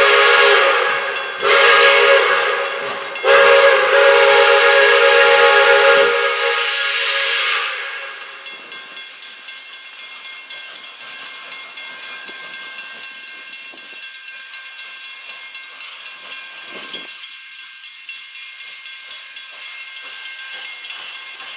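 Pere Marquette 1225, a 2-8-4 Berkshire steam locomotive, sounds its chime whistle in three loud blasts, the third the longest, trailing off about seven seconds in. After that come a steady steam hiss and quick, light exhaust beats as it pulls away.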